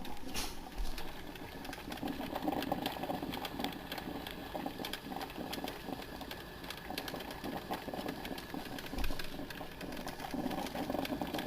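Black & Decker thermal carafe drip coffee maker brewing: continuous irregular bubbling and clicking as its heater pushes water up from the emptying reservoir, steaming.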